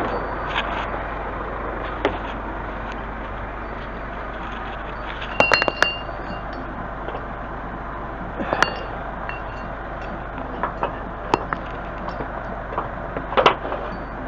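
Steel lifting hooks clinking against a site container's corner fitting as they are hooked on: a few sharp metal clinks with a short ring, the loudest about five seconds in and again near the end. Under them, the steady hum of a Scania truck's engine running.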